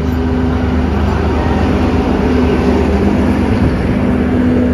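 Diesel-electric multiple unit (DEMU) passenger train running past a platform: a steady, loud rumble of the coaches with an even drone.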